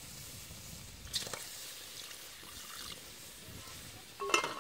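Liquid poured from a plastic bowl into a metal cooking pot of fish, a steady splashing pour. Near the end a metal pot lid clatters down onto the pot.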